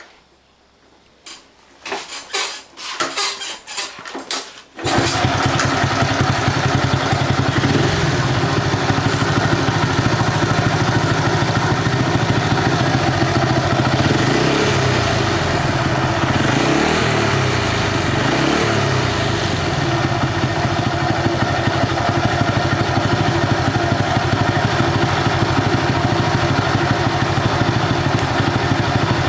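Honda Cub's small single-cylinder four-stroke engine starting abruptly about five seconds in after a few knocks, then running steadily, with three brief rises in revs in the middle.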